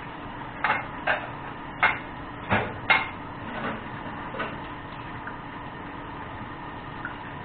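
Kitchen cookware being handled: five short knocks and clatters within about three seconds, then two fainter ones, over a steady background hiss.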